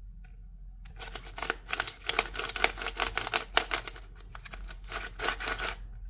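Plastic dinosaur-shaped 2x2x3 twisty puzzle turned rapidly in the hands for about five seconds, its pieces clacking and rattling in quick irregular clicks. It is freshly lubed, and the turning still catches.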